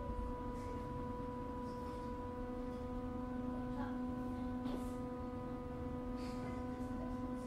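Berlin U-Bahn F79 railcar standing still, its auxiliary power converter giving a steady electrical hum: one low pitch with several overtones above it, over a low rumble, with a few faint ticks.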